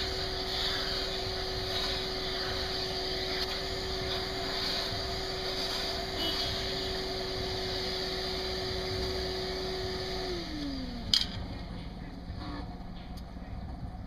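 Shop vacuum running steadily with a constant whine, then switched off about ten seconds in, its motor falling in pitch as it winds down. A single sharp knock follows about a second later.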